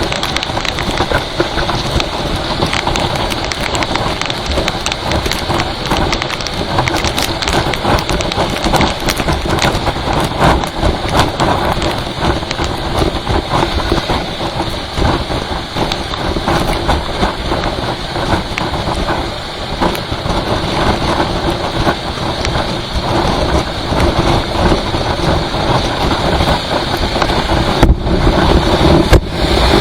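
Rain falling on a vehicle travelling on a highway: a constant patter of drops over the steady rumble of the vehicle and road.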